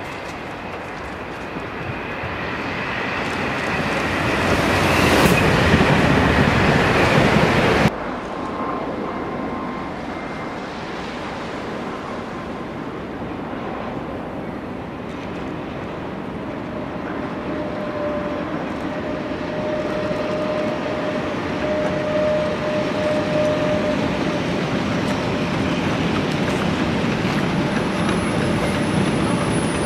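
A train approaching on snowy track, growing louder until the sound cuts off abruptly about eight seconds in. Then a long freight train of covered wagons rolls past with a steady rumble, and a thin steady whine joins in the second half.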